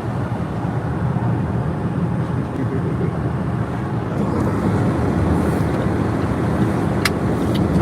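Steady low rumble of a running vehicle, with a single click about seven seconds in.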